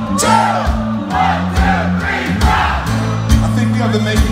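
Live band playing strummed acoustic guitars over an electric bass line, with the audience singing and shouting along.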